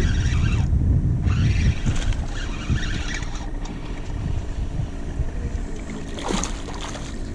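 A small bass being reeled in to a kayak on a spinning reel, with a low wind rumble on the microphone; about six seconds in the fish splashes as it is lifted at the surface.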